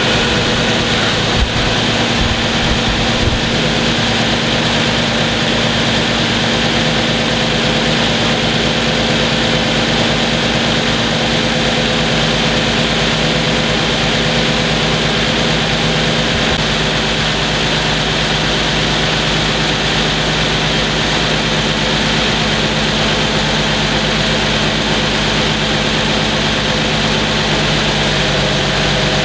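2015 Infiniti Q70's 3.7-litre V6 idling steadily after a cold start, with a fast ticking and tapping from the top of the engine that the owner takes to be normal for this engine. Near the end the idle settles slightly lower.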